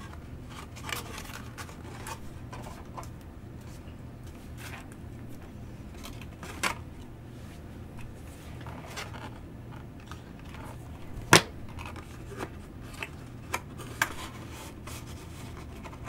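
Hands handling and pressing a cardstock favor box: light paper rustles and scattered small taps as the hot-glued tabs are held together, the sharpest tap about eleven seconds in. A steady low hum lies underneath.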